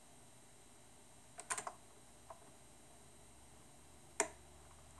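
Technics SL-QD3 automatic tonearm mechanism clicking as the arm swings over the record and lowers onto the lead-in: a small cluster of clicks about a second and a half in and one sharper click a little after four seconds. A faint low hum comes in near the end.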